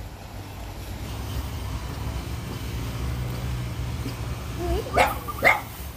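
Steady low drone of distant grass-cutter engines, with a few short high calls about five seconds in.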